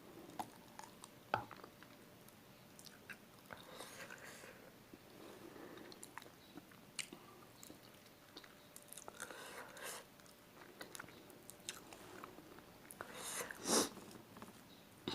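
Close-up chewing and biting of spicy chicken feet: soft wet mouth sounds and small scattered clicks as the skin and cartilage are worked off the bones. A short, louder rush of noise comes near the end.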